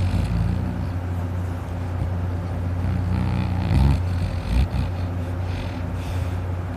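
A man snoring heavily in deep sleep, over a steady low drone, with a louder, rougher snoring breath about halfway through.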